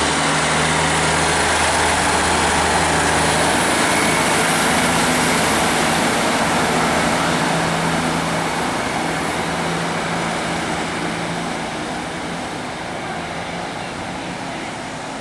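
Class 150 Sprinter diesel multiple unit pulling out of the station, its underfloor diesel engines running with a faint high whine above. The sound is loud at first as the train passes close, then fades steadily over the second half as it draws away.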